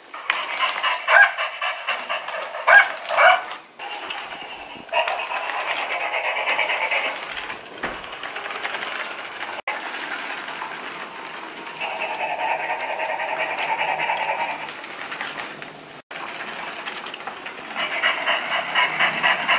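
Battery-powered robotic toy dog (FurReal Friends Go Go My Walking Pup): a few short electronic yaps in the first seconds after its head is patted, then its geared walking motor running in three stretches of a few seconds each, with a fast rattling click as the legs move.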